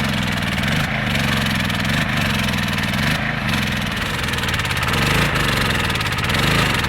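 Engine of a compact forestry machine running under load, its pitch rising and falling a few times in the second half as it works.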